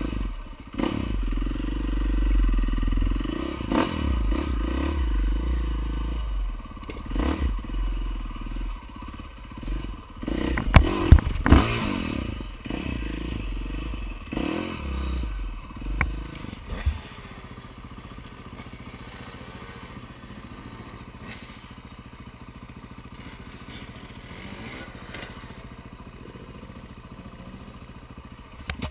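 Dirt bike engine running close to the microphone, with loud clattering knocks about ten to twelve seconds in. After about 17 seconds the engine sound drops away to a much lower, steady level.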